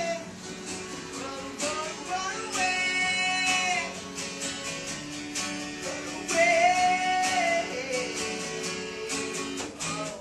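A singer holding long, wavering notes over a strummed guitar, very loud.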